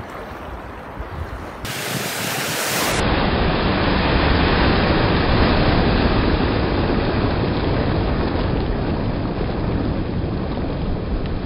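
Choppy seawater rushing and splashing close to the microphone, with wind buffeting it; a steady loud rush that swells a few seconds in.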